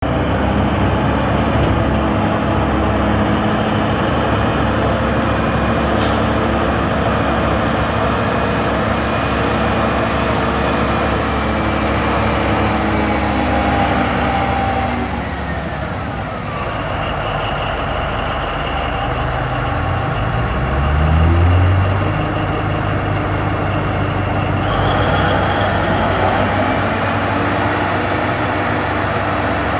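Diesel engine of a Caterpillar rear-dump haul truck running. The engine note drops, then revs up about two-thirds of the way through and holds high while the hydraulics raise the dump body.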